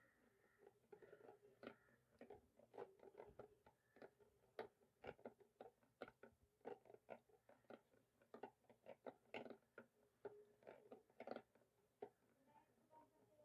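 Wooden hand churner (ravi) twirled in thick curd in a plastic bowl: a faint, uneven run of short wet clicks and slaps, a few a second, as the star-shaped head beats the curd smooth.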